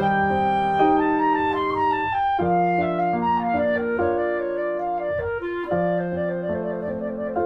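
Instrumental background music: a slow melody of long held notes.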